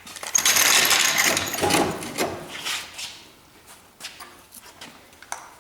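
A burst of metallic rattling and scraping for about three seconds as work goes on at a car's front suspension, then a few light clicks.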